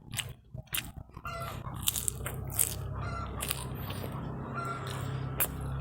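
Close-up crunching and chewing of crispy fried snacks, a run of sharp crisp bites. A steady low hum comes in about a second in.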